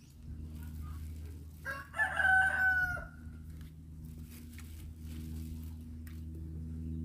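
A rooster crowing once, about two seconds in: a single call of about a second and a half that dips in pitch at its end.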